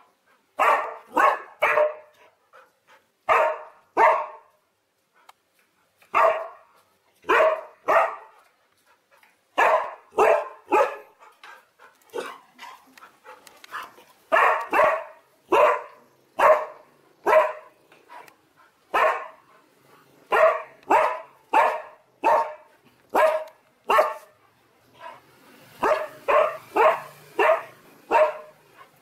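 Siberian Husky barking again and again, short sharp barks often in quick runs of two or three with brief pauses between: alarm barking from a frightened dog.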